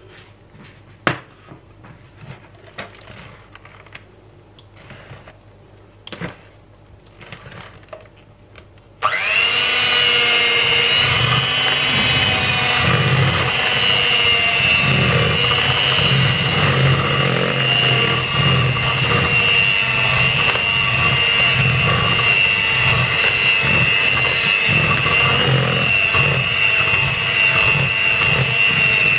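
Electric hand mixer beating cake batter in a plastic bowl, running steadily with a high whine. It switches on abruptly about nine seconds in, after a few light knocks and clicks.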